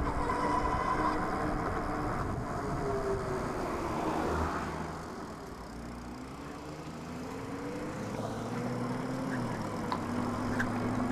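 Super73 S2 electric bike being ridden: a steady motor hum over wind and road noise. The hum falls in pitch over the first few seconds, then rises again from about eight seconds in as the bike speeds up.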